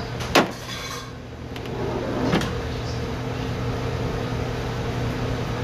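Steady mechanical hum of kitchen equipment, with a sharp knock about half a second in and a softer knock about two seconds later as food and containers are handled at a steel prep counter.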